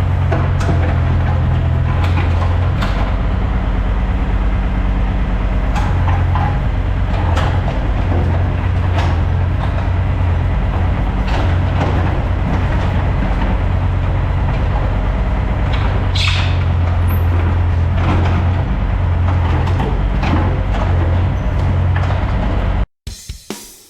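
Construction machine engine running steadily at a constant speed, with irregular knocks and scrapes of stone over it. It cuts off abruptly near the end, where drum-kit music comes in.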